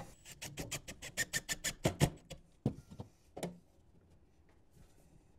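Power drill driving a wall-bracket screw home, clicking in a fast, even run of about nine clicks a second for nearly two seconds, then a few single clicks.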